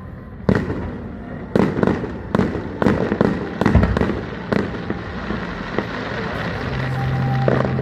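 Aerial fireworks shells bursting in quick succession, about a dozen sharp bangs over a crackling background in the first five seconds, then thinning out. A steady low hum comes in near the end.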